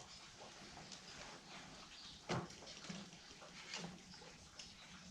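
Quiet handling of a sawmill band blade being lined up in a tooth setter, with one sharp knock about two seconds in and a few lighter clicks after it.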